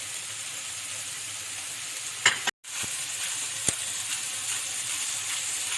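Mushrooms and spinach sizzling steadily in olive oil in a pan, with a few light clicks. The sound cuts out completely for an instant about two and a half seconds in.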